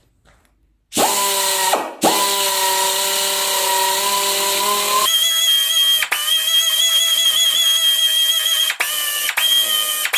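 Rotary power tool spinning up about a second in, stopping briefly and spinning up again. About halfway through its pitch jumps higher and wavers, and it cuts out for a moment several times near the end.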